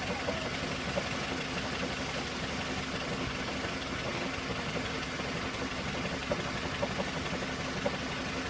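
Ford Focus 2 engine idling steadily, with a few sharp, irregular knocks: at the start, about a second in, and several more near the end. This is the knock from the clutch area that the owner is chasing.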